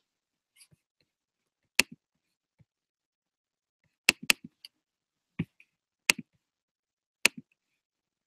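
About six irregularly spaced clicks of a computer mouse or trackpad button as windows are opened, each a sharp press with a softer release just after, and a quick double click about four seconds in.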